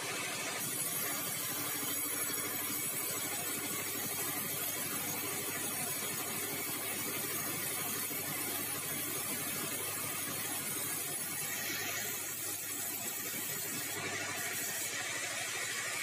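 Sawmill band saw running and cutting bengkirai hardwood timber fed on a rail carriage: a steady, dense machine noise with a hissing high edge that comes in about a second in and falls away near the end.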